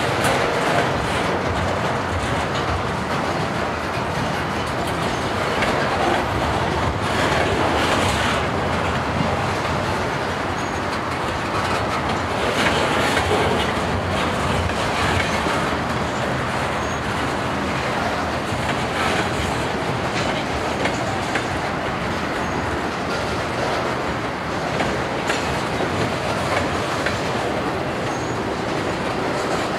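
Freight cars rolling past on steel wheels: a steady rumble of wheels on rail, broken by scattered clacks as the wheels cross rail joints.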